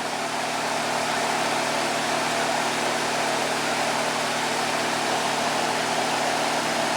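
Electric shop fan running steadily: an even rush of air with a constant low hum.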